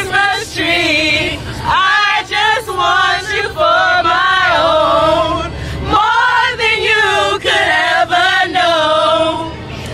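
A group of young women singing together loudly, holding long notes with vibrato.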